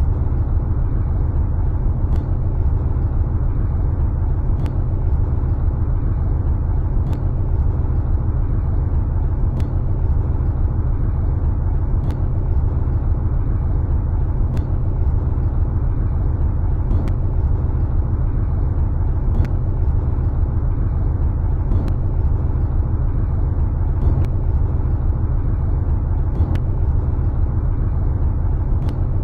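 Steady low rumbling drone, with a faint click about every two and a half seconds.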